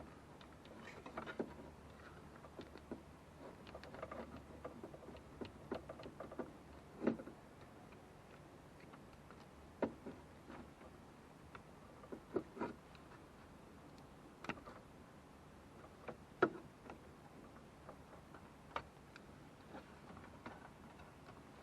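Irregular light clicks and knocks of hand work on small metal parts: clips for the HVAC control cable and vacuum lines being handled, flattened and fitted, with a few sharper taps scattered through.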